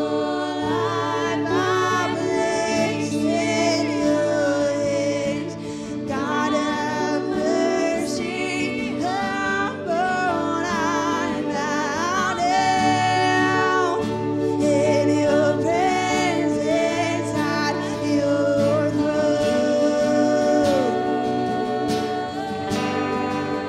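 Live worship band: two women singing over electric and acoustic guitars, with an ambient pad from an Aerospace Audio Atmosphere pedal holding a steady chord underneath.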